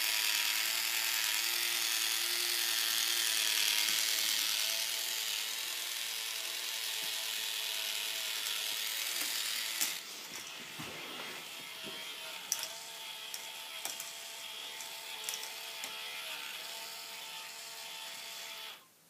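K'nex ball machine running: small motors driving its plastic lifts whir steadily under a dense ratcheting clatter of plastic parts. The clatter eases about halfway, leaving the whirring with a few sharp clicks, then everything cuts off suddenly near the end.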